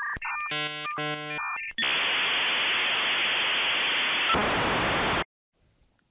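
An electronic sound effect: two short groups of beeping tones, then loud static hiss that cuts off suddenly about five seconds in.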